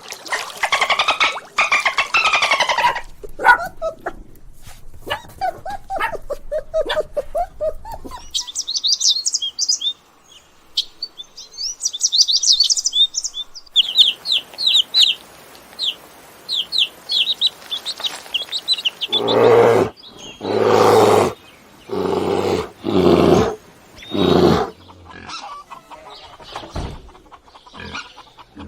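A run of different animal calls, one clip after another. A wavering, pitched call at the start gives way to rapid high bird chirping through the middle. After that comes a series of loud, short calls about once a second.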